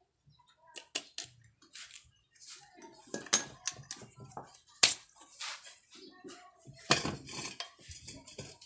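Metal motorcycle engine parts clinking and knocking against each other and on a hard surface as they are handled, in irregular strikes with the loudest about three and a half, five and seven seconds in.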